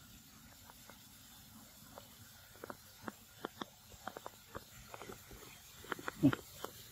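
Faint quiet at first, then from about two and a half seconds in, scattered light clicks and crackles, with one louder knock near the end.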